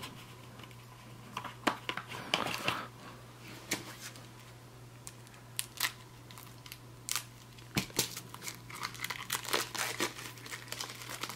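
Plastic shrink wrap on a deck of playing cards crinkling and tearing as it is slit with a small blade and peeled off, in scattered crackles and ticks.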